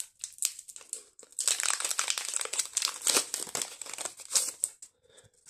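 Foil wrapper of a Pokémon TCG booster pack crinkling as it is handled and opened: a few light crackles, then about three and a half seconds of dense crinkling.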